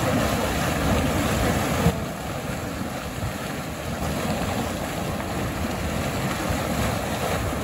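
Hot mud pool boiling and steaming, a steady rushing, churning noise that drops a little about two seconds in.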